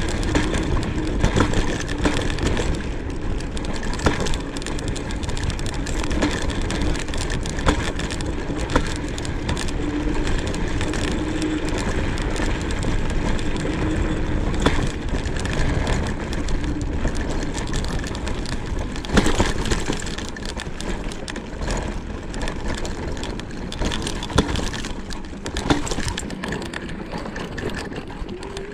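Joyor Y6S electric scooter ridden over a rough dirt forest track: a steady rumble of tyres and frame with a faint motor hum, broken by frequent knocks and rattles over bumps.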